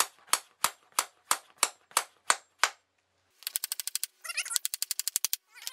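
A small claw hammer nailing a wooden cross strip onto thin ceiling paneling, striking steadily about three times a second for the first two and a half seconds. After a short pause comes a quicker run of lighter taps.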